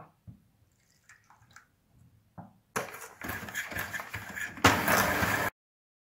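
Electric hand mixer starting up almost three seconds in, its beaters whipping egg yolks, sugar and a little milk in a stainless steel saucepan, louder near the end and then cutting off suddenly. A few faint clinks come before it.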